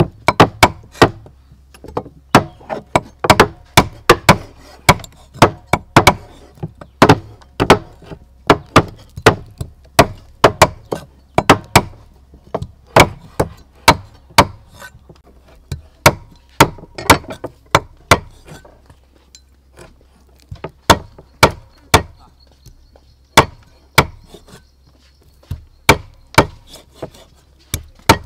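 Cleaver chopping through raw chicken feet onto a thick wooden chopping block: a run of sharp knocks, two or three a second in an uneven rhythm, with fewer strokes for a few seconds past the middle.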